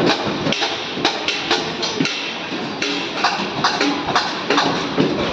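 Background music with a percussive beat, sharp knocks about twice a second.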